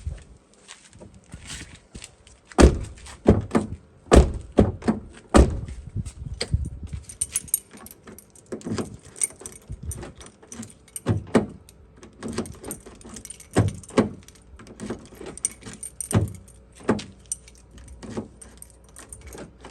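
Car door hardware clicking and clunking as it is worked, with keys jingling: a long run of sharp clicks and knocks, the loudest clunks in the first few seconds.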